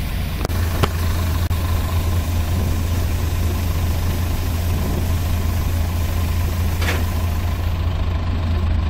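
New Holland 8060 combine harvester running steadily with a strong low engine hum while its unloading auger pours rice grain into a truck. A few sharp clicks about half a second to a second and a half in, and another about seven seconds in.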